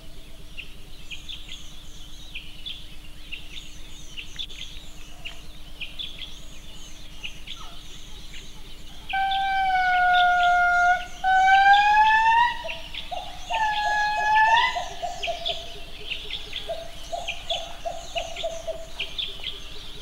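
Indri singing: three long wailing notes about nine seconds in, the first held and sagging slightly, the next two rising. Under the calls runs a steady high chirping chorus of rainforest birds or insects.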